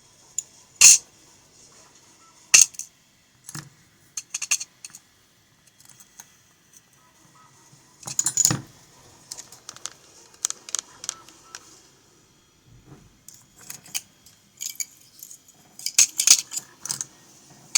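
Small metal lock parts clinking and tapping as a pin-tumbler lock is taken apart: pins, springs and tools handled and set down, with scattered sharp clicks that grow busier near the end.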